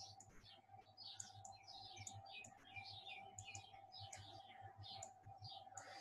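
Small birds chirping faintly in the background: quick, falling chirps several times a second, over a faint steady hum.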